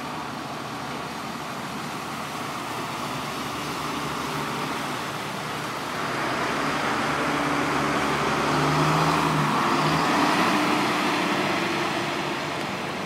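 Vehicles driving through shallow flood water on a street, their tyres hissing through it, with a truck's engine running close by, growing louder about halfway through and loudest about two-thirds of the way in.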